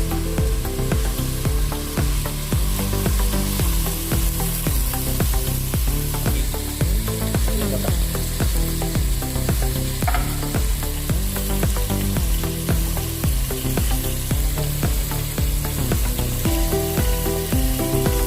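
Food frying and sizzling in a pan while being stirred, with many small scraping clicks of the utensil against the pan.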